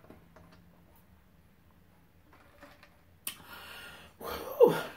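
A few quiet seconds of sipping soda through a straw, then two heavy breaths out, the second ending in a short sigh that falls in pitch near the end.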